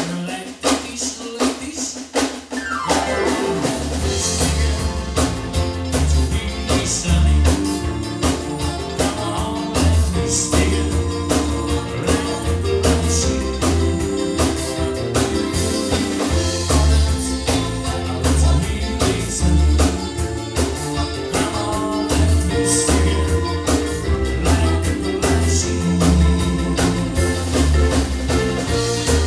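Live band playing a song with vocals: electric bass, electric guitar, keyboards and a drum kit. The bass and drums come in about three seconds in, after a thinner opening, and a steady beat then carries on.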